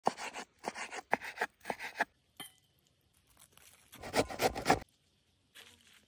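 Chef's knife chopping raw chicken breast on a wooden cutting board, four quick rounds of strokes in the first two seconds. About four seconds in comes a louder, denser burst of rubbing and scraping, and near the end a faint shake of salt.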